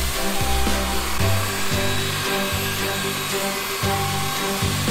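Craftsman belt sander running steadily, its belt grinding down the edge of a cedar deck board to round it over, under background music with a steady bass line.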